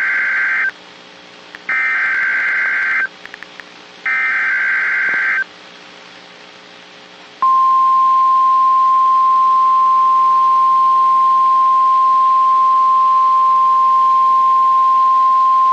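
NOAA Weather Radio Emergency Alert System activation: three screeching bursts of SAME digital header data, each about a second and a half long, the first already under way. About seven seconds in, the steady single-pitch 1050 Hz warning alarm tone starts and holds, signalling that an alert announcement follows.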